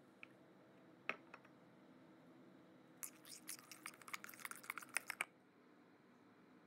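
A utensil clicking and scraping quickly against a stainless steel bowl for about two seconds as a small batch of sauce is stirred together, after a single light knock about a second in.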